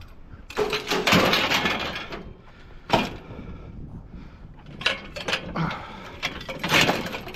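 Heavy scrap metal being handled: a scraping, rattling clatter for about a second and a half, a single sharp clank about three seconds in, then more metal knocks and clanks near the end.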